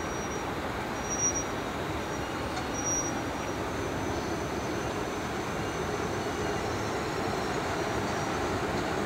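A freight train headed by several SBB Re 420 electric locomotives rolls slowly in, with a steady rumble that grows slightly louder as it nears. Brief high-pitched wheel squeals come three times in the first three seconds.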